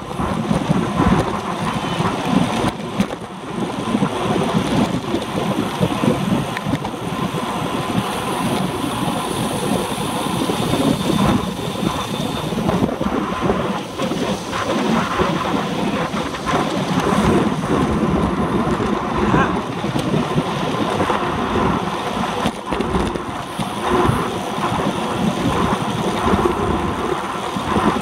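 Wind rumbling and buffeting over the microphone of a handlebar-mounted camera on a road bike at racing speed, mixed with tyre and road noise, in uneven surges.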